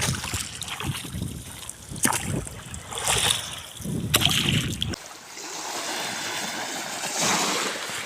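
Sea water splashing around a small wooden fishing boat, with wind gusting on the microphone and a few knocks. About five seconds in the low rumble cuts off, leaving a steady hiss of water that swells near the end.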